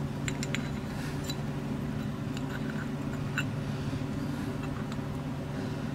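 A steady low mechanical hum, with a few faint, light clicks of small carburetor parts and a gasket being handled.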